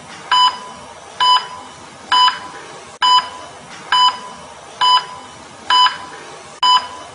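Medical heart-rate monitor beeping: short beeps of one steady pitch, evenly spaced at a little more than one a second, eight in all.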